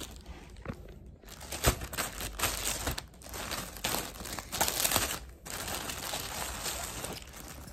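Thin clear plastic packaging bag crinkling and crackling as it is peeled open by hand and pulled off a new fabric handbag, in an irregular run of crackles.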